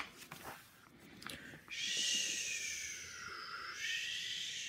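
A picture-book page turned over with a short papery rustle, then a long whispered 'sssss' hiss, about four seconds, voicing the sound of falling snow.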